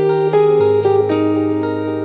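Background music: held chords over a low bass line that drops a step about half a second in.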